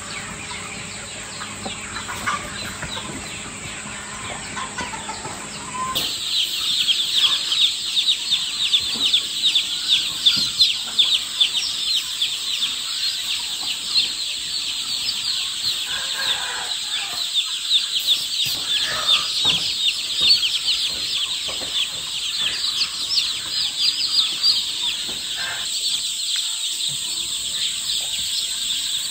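Newly hatched chicks peeping in a dense chorus of short, high cheeps. The chorus gets suddenly louder about six seconds in, and a few lower calls are mixed in around the middle.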